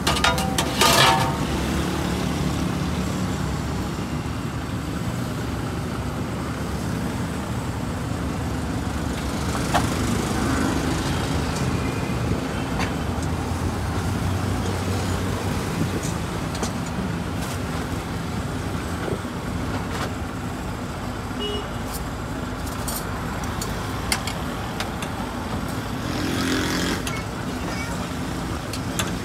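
Steady road traffic noise from a busy street, with a few sharp clicks scattered through it.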